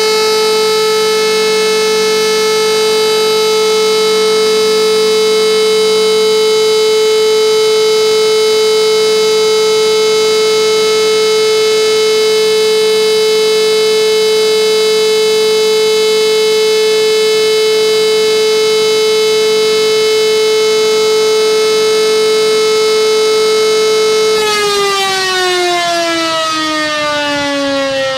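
German electric civil-defence sirens sounding the all-clear: a loud, steady, unwavering siren tone. About 24 seconds in, the power is cut and the pitch falls away as the rotors spin down.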